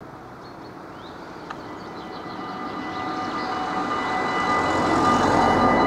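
Dutch level-crossing warning bells start ringing as the red lights begin flashing: a steady ringing that comes in about two seconds in, while the overall sound swells steadily louder. Faint bird chirps sound in the first half.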